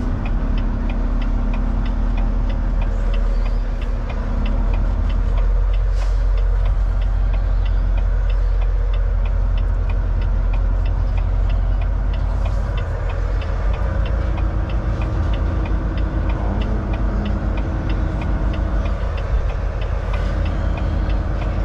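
Volvo semi truck's diesel engine running at low speed as the truck maneuvers slowly, heard from inside the cab as a steady low rumble. A fast, regular light ticking runs over it.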